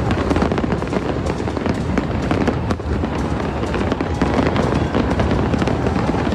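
Fireworks display going off: a dense, continuous crackle of many small bursts and pops over a steady low rumble.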